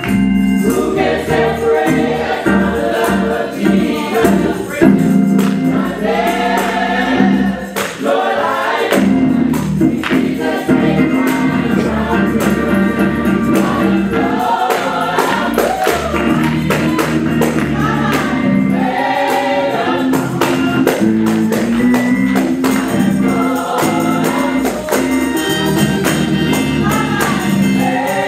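Live gospel praise music: a group of singers on microphones, with sustained low instrumental accompaniment and percussion such as a tambourine.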